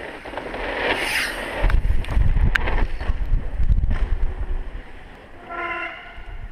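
Wind buffeting the microphone with low, gusty rumbling, broken by a few sharp clicks. Near the end comes a short steady pitched tone, about half a second long.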